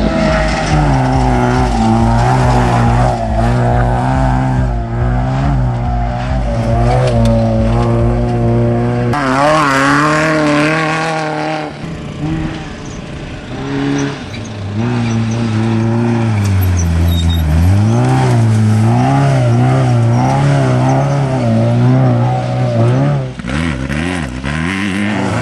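Off-road race vehicle engines running hard. Their pitch rises and falls again and again as they rev and accelerate, and the sound dips briefly about halfway through.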